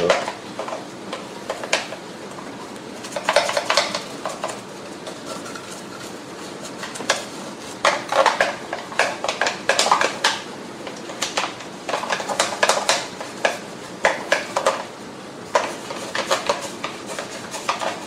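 An old toothbrush scrubbing inside a Shark vacuum's plastic dust canister and metal cyclone screen, wet with foaming glass cleaner: irregular spells of quick, scratchy strokes against the plastic, with short pauses between them.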